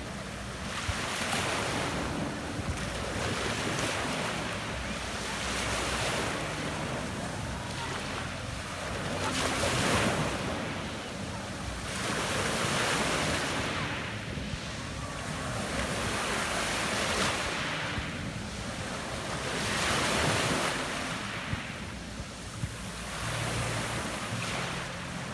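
Adriatic Sea surf washing onto a pebble beach, each wave swelling and fading in turn about every two to three seconds.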